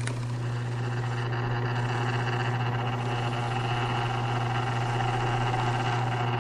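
Wood lathe running with a steady hum while a cloth rubs paste wax onto the spinning bowl.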